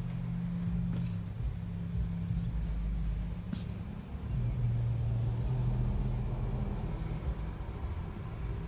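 Steady low rumble, like a vehicle engine running, with a couple of faint clicks.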